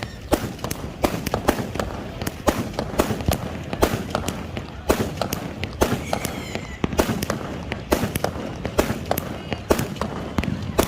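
Fireworks and firecrackers going off in a rapid, irregular string of sharp bangs and cracks, several a second.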